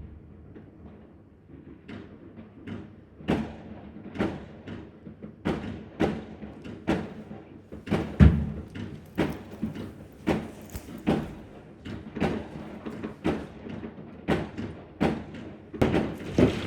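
Fireworks going off: a string of irregular bangs, about one or two a second, starting about three seconds in. The loudest bang comes around eight seconds, and the bangs crowd together near the end.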